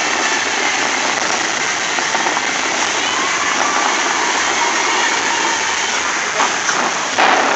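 Bellagio lake fountain's high water jets spraying and crashing down onto the lake, a steady loud hiss of falling water that swells louder near the end.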